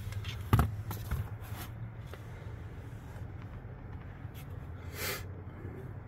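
A steady low hum, with a sharp knock about half a second in followed by a few lighter clicks, and a brief rustle about five seconds in.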